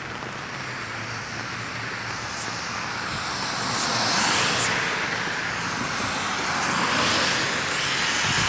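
Cars passing on a rain-wet road: tyre hiss swells and fades twice, about four seconds in and again near seven seconds, over a steady wash of rain noise.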